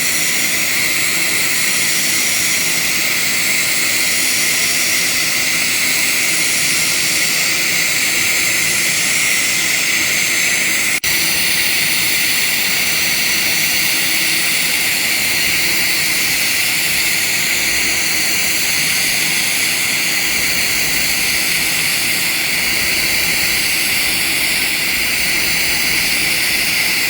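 TIG welding arc running steadily while the torch cup is rocked side to side along the joint (walking the cup): a loud, even hiss with a low steady hum underneath, briefly breaking off about 11 seconds in.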